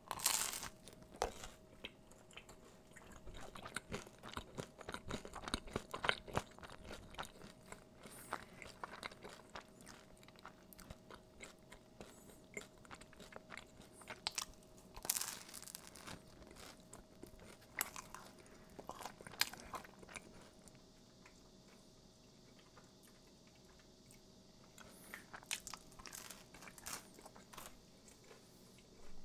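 Close-up eating sounds: crisp-crusted fougasse bread being bitten and chewed, with irregular crunches and crackles and quieter stretches between bites.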